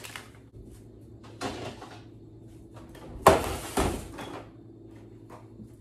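Refrigerator door opening and a baking pan being taken out and set down on a stainless-steel work table, with a few knocks, the loudest about three seconds in.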